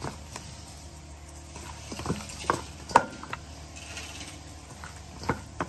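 Chicken wings being tossed by a gloved hand in a stainless steel mixing bowl: irregular knocks and taps of wings against the bowl, loudest about three seconds in.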